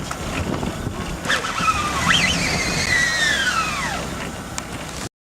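A car trying to pull away from an icy spot, its engine and wheels running with a rumble. A high whine from about a second and a half in climbs, then slides steadily down over a couple of seconds. The sound cuts off abruptly near the end.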